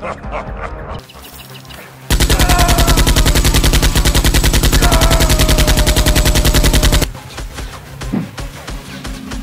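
Rapid automatic gunfire: one long burst of evenly spaced shots, starting about two seconds in and stopping abruptly about five seconds later.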